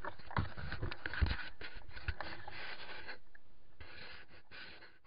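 Footsteps and rustling through dry grass and scrub, with irregular scrapes and scratches of vegetation brushing past a body-worn camera. The sound fades out over the last couple of seconds.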